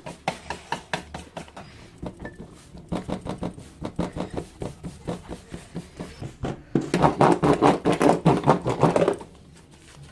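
Rapid, rhythmic knocking strikes, about six to eight a second, getting much louder for about two seconds near the end before stopping.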